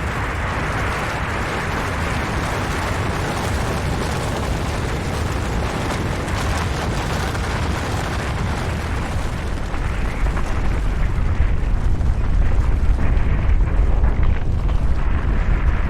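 Snow and rock avalanche: a continuous dense crackling rush of sliding snow and rock. About ten seconds in, a deep low rumble swells and grows louder while the higher crackle thins.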